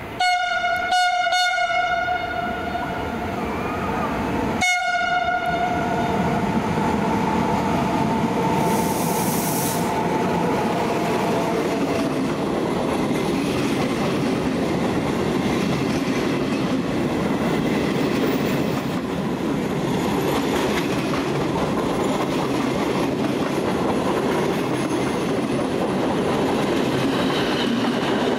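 Trenitalia E.464 electric locomotive sounds its horn in short blasts at the start and once more about five seconds in. The train of passenger coaches then rolls through the station with steady wheel-on-rail noise and clickety-clack.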